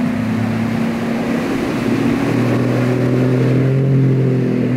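Outboard motors of bass boats running at high speed, a steady engine drone over rushing water and wind noise. A deeper engine tone comes up about halfway through.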